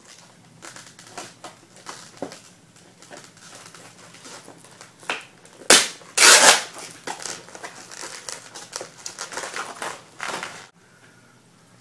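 Stiff clear plastic blister packaging being handled and pried open by hand: a run of crackles, clicks and crinkles, with the loudest sharp cracks about six seconds in. The crackling stops about a second before the end.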